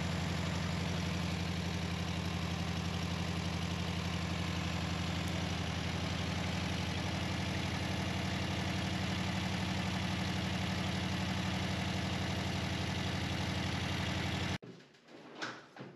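1964 Volkswagen Beetle air-cooled flat-four engine idling steadily with its doghouse cooling fan turning. It runs evenly, 'not too bad', then cuts off suddenly about a second and a half before the end, leaving a couple of faint knocks.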